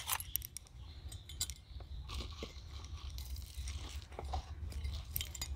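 Faint scattered crackling and small ticks: crumbly finished compost dropping out of a mesh compost bin of dry leaves onto a plastic tub, with dry leaves rustling. One sharper click right at the start.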